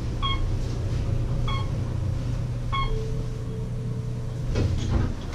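Elevator car travelling: a steady low rumble with a short electronic beep about every second and a quarter, three times, then a clunk and rattle near the end as the car comes to a stop.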